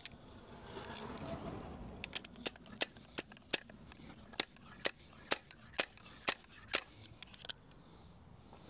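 A fork seal driver knocking a new fork seal down into a Suzuki VL125's front fork leg: a run of about a dozen sharp taps, roughly two a second.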